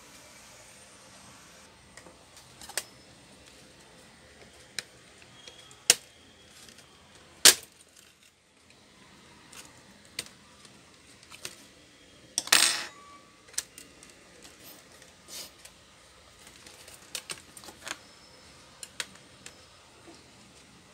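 Scattered sharp clicks and taps of a Lenovo Y460 laptop being taken apart by hand: a screwdriver working the screws and the plastic case and bezel being prised apart. The loudest click comes about seven seconds in, a short rattle about halfway, and a run of small ticks near the end.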